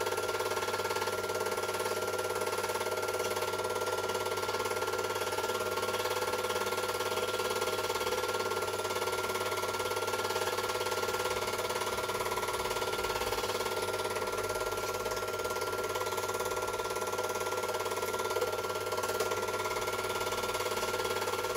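Super 8 film projector running: a steady mechanical whir with a constant tone and a low hum over a light hiss.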